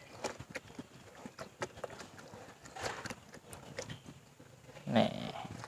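Wet batik cloth being rubbed and pressed by hand in a basin of dye solution: irregular small splashes, slaps and squelches of fabric in liquid, with a somewhat louder splash about five seconds in.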